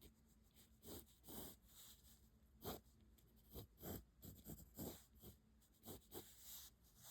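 Graphite pencil drawing lines on paper or card: faint, irregular short scratching strokes, about one or two a second.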